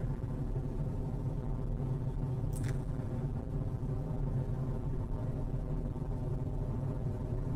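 A steady low droning hum with many even overtones and no change in level, with a brief hiss about two and a half seconds in.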